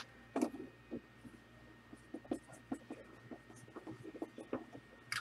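Faint, irregular light taps and scratchy rustles of small objects being handled on a tabletop, over a steady low hum.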